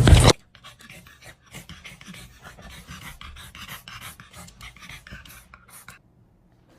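A brief loud rumble cuts off abruptly at the very start. Then a dog pants quickly and quietly for several seconds and stops near the end.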